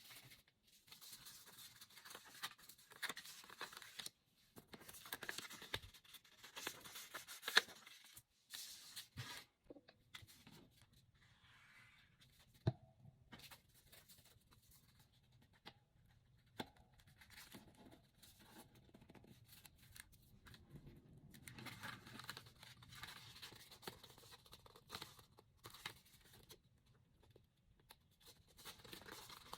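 Faint rustling and scraping of paper and cardstock being handled and worked, in irregular bursts, with a couple of sharp taps in the quieter middle stretch.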